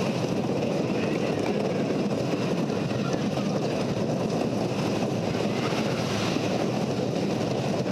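Wooden roller coaster's Timberliner train running along its track: a steady rushing rumble that holds even throughout.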